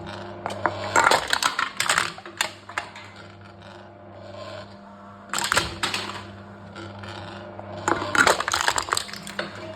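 Aluminum cans being crushed in a can-crushing machine: three spells of crackling, clattering metal, about half a second in, around five and a half seconds in, and near the end, over a steady low hum.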